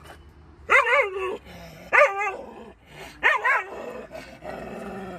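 Dog barking from inside a car, three loud barks about a second apart, then a quieter drawn-out growl near the end. It is a guarding reaction to someone pretending to strike its owner.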